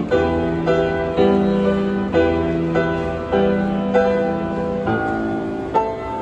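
Grand piano played with both hands: a melody of notes struck about once or twice a second over sustained chords in the bass.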